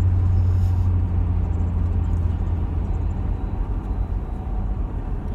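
Car interior noise while driving: a steady low engine and road hum inside the cabin.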